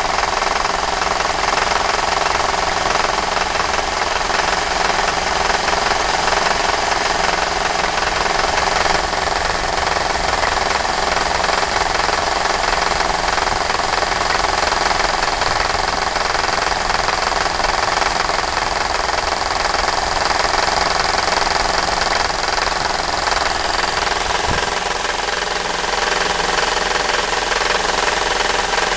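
Mercedes-Benz W124's M111 four-cylinder engine running, with a steady abnormal noise from the serpentine belt tensioner. The noise shows up with the automatic transmission in Drive and not in Neutral or Park.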